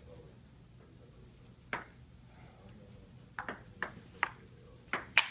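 Table tennis ball clicking off paddles and the table during a rally: a single hit a little under two seconds in, then a quick run of about six hits in the last two seconds, the loudest at the very end.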